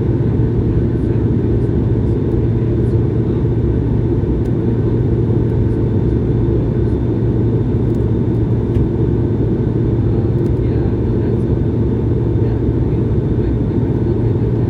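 Steady cabin roar inside an Airbus A220-100 climbing at climb thrust, its Pratt & Whitney PW1500G geared turbofans and the airflow giving a deep, even drone with a low hum and faint steady whines above it.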